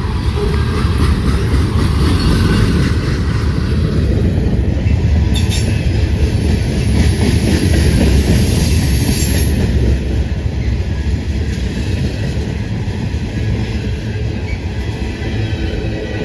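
Freight train cars rolling past with a steady low rumble and the clatter of wheels over rail joints, loudest between about five and ten seconds in.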